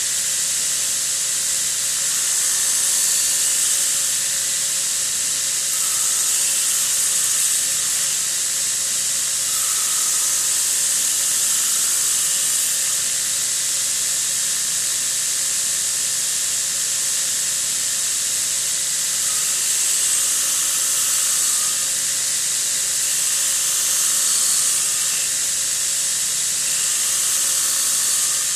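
Belt grinder sanding a wooden handle blank held against its contact wheel: a steady hiss of the abrasive belt on wood over a faint steady whine from the machine, swelling slightly now and then as the wood is pressed harder.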